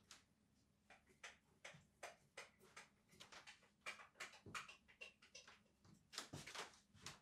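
Glue spreader scraping glue across the jute-backed underside of a linoleum sheet in many quick, irregular strokes. The sound is faint and grows busier in the second half.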